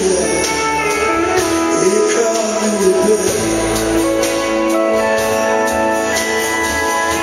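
Live country band playing: strummed acoustic guitars and electric guitar over drums, with held notes ringing out.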